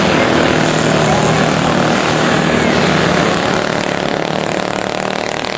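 Small engines of junior dirt-track racing karts running at speed around the oval: a steady, overlapping buzzing drone that eases slightly near the end.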